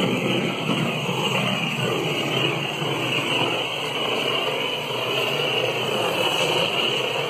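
Handheld gas torch burning with a steady hiss as its flame is passed over freshly poured epoxy resin to pop surface bubbles.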